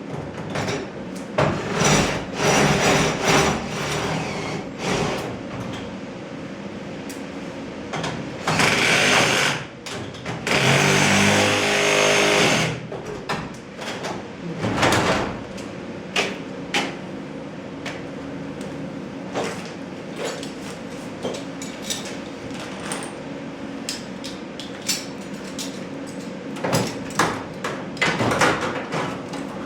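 A power driver runs in several bursts, the longest about two seconds near the middle, while metal door hardware clicks and knocks, over a steady low hum.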